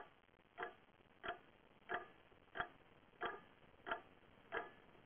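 A clock ticking steadily, about three ticks every two seconds.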